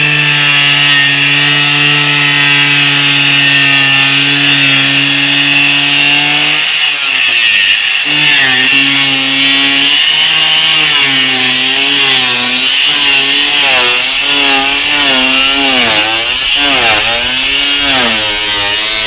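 Angle grinder with a thin cut-off disc cutting through a van's corrugated sheet-steel roof: a loud, high grinding hiss over the motor's whine. About seven seconds in, the whine starts wavering up and down in pitch as the disc is pushed through the cut and bogs under load.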